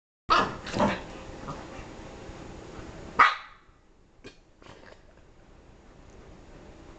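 Dog barking: two loud barks in quick succession in the first second, and a third a little after three seconds in.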